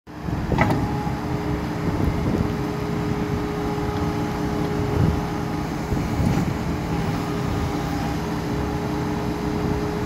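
2015 New Holland L228 skid steer loader running and being driven, its diesel engine working steadily under a constant whine while the loader arms raise the bucket, with a sharp knock about half a second in.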